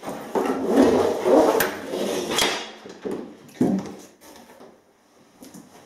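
Rummaging in a cardboard box of packed parts: scraping, rustling and clattering for the first couple of seconds, one sharper knock a little after three and a half seconds, then only faint handling.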